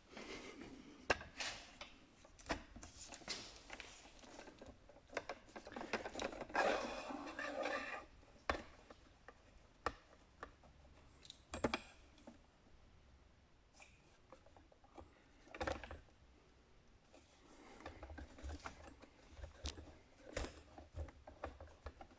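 Scattered metal clicks, knocks and scraping from a jack and hand tools being worked under a motorcycle, with a longer stretch of rubbing and scraping about six to eight seconds in.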